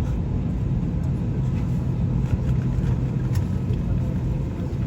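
Steady low rumble heard from inside a vehicle, with a few faint clicks.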